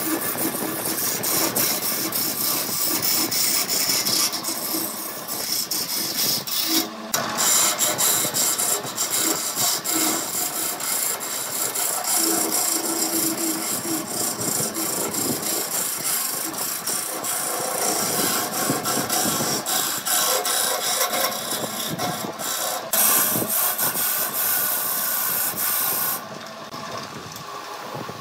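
Wood lathe spinning a segmented, glued-up wooden blank while a hand-held turning chisel cuts and scrapes its surface: a loud, dense rasping hiss with fast chatter. Near the end the cutting stops and the noise drops.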